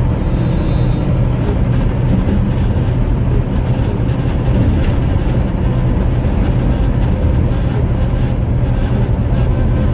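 Steady low rumble inside a semi truck's cab driving at highway speed: engine, tyre and wind noise, even throughout.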